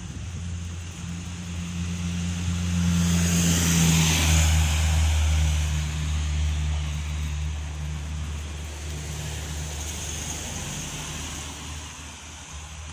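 A van drives past close by: engine hum and tyre noise build up, are loudest about four seconds in, then fade slowly as it moves off up the road.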